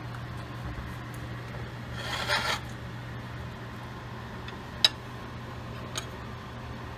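Steady low hum, with a short scraping rub about two seconds in and a sharp click a little before five seconds as a table knife is handled and set on a china plate.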